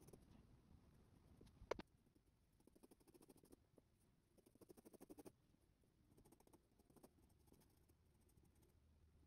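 Faint scratching of a Faber-Castell 9000 8B graphite pencil hatching on paper, in short runs of quick strokes at about ten a second, with one sharp tick a little under two seconds in.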